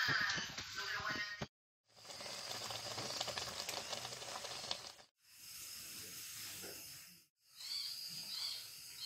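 A steel wok of greens hissing and sizzling as it steams over the fire, in short stretches cut off by brief silences about a second and a half, five seconds and seven seconds in. Faint high chirps sound in the last stretch.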